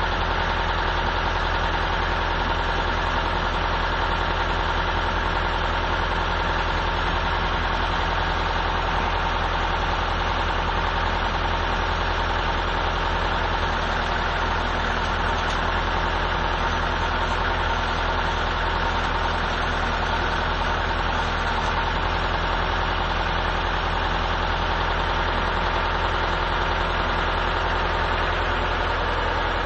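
Machining setup running steadily with a continuous low hum and an even mechanical drone, as the seat of a large 12-inch check valve is machined.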